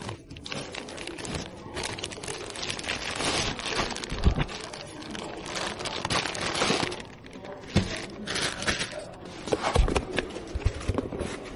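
Hands handling computer parts and their packaging: continuous crinkling and scraping with many small clicks, and a few heavier knocks about four, eight and ten seconds in.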